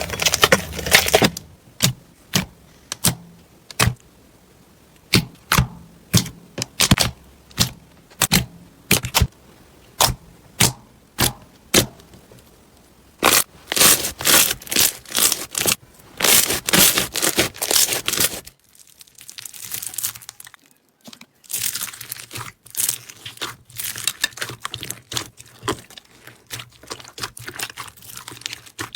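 Slime being pressed and worked by hand, making a run of separate sharp pops about two a second, then denser crackling that stops briefly and starts again.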